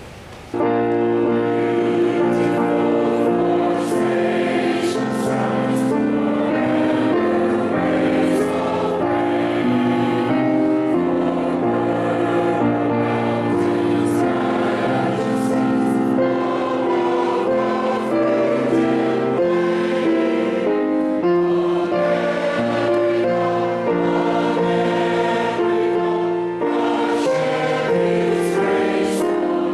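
Choir singing with music, starting abruptly about half a second in and holding steady chords that change every second or two.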